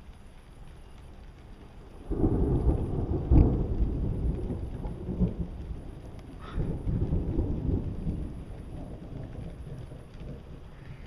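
Thunder: a sudden loud crack about two seconds in that rolls on as a low rumble, with a second roll of rumbling about six and a half seconds in before it fades.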